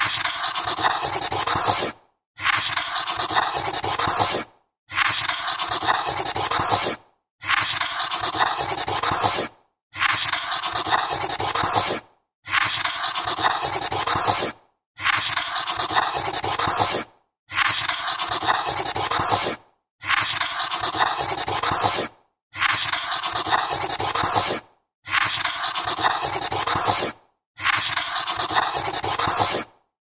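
Felt-tip magic marker writing on paper, a scratchy squeaking rub. It comes in runs of about two seconds broken by short silences, repeating evenly about a dozen times.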